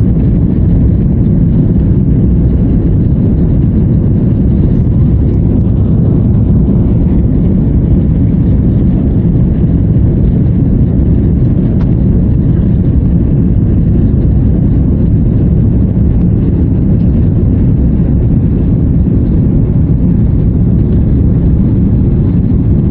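Passenger jet noise, a loud steady low rumble with no change in pitch or level.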